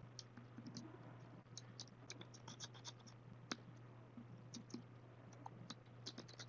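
Faint, light scratching of a small hand tool working along the glass of a vase around dried air-dry clay, cleaning residue off the glass in many short strokes, with one sharper click about three and a half seconds in.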